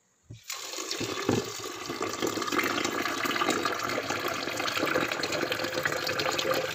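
Tap water running into a plastic blender jar, starting about half a second in and then pouring steadily.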